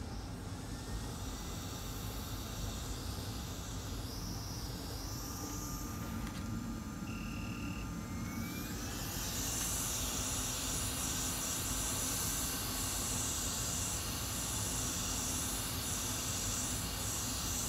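Hot air rework station blowing a steady hiss of hot air onto the board to reflow the solder under the BGA RAM chips, with a fume extractor fan running underneath. The hiss grows louder about nine seconds in.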